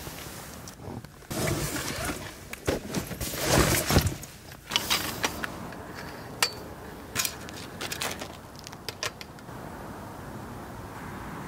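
Handling noise of camera gear being set up: dense rustling and clattering in the first half, then scattered sharp clicks as tripods are set out and a camera with a long telephoto lens is clamped onto a tripod head. The clicks stop near the end, leaving a faint steady hiss.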